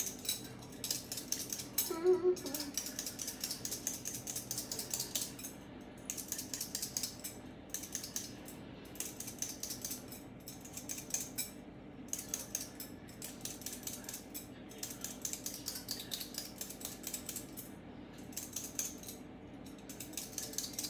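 Hand-held vegetable peeler scraping the skin off a raw potato in quick, irregular strokes, several a second.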